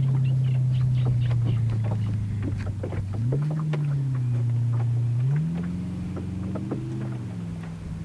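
Mercruiser MAG 496 big-block V8 sterndrive of a Baja speedboat running at speed, its engine note rising and falling in pitch twice, then fading near the end as the boat moves away.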